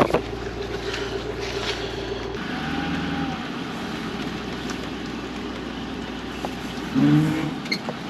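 A vehicle running steadily, a constant engine and road noise, with a short pitched sound about seven seconds in.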